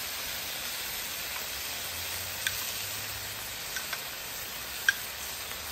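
Teriyaki sauce hissing and steaming as it is spooned onto chicken on a hot flat-top griddle: a steady sizzle, with a few faint clicks.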